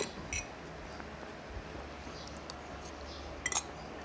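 A few light clinks of cutlery against plates and glassware: two at the start and a quick pair about three and a half seconds in, with quiet between.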